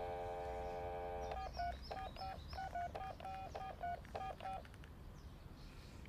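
Telephone dial tone that stops about a second in, followed by about ten touch-tone (DTMF) keypad beeps dialed in quick succession.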